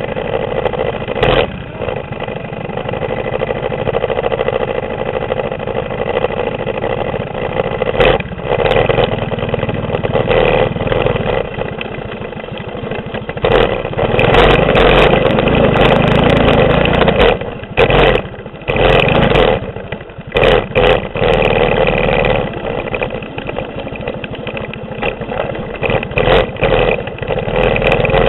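Mini bike's 6.5 hp clone single-cylinder four-stroke engine running under throttle, revving harder about halfway through and then cut off and opened up again several times in quick succession. Occasional knocks come from the bike jolting over rough ground.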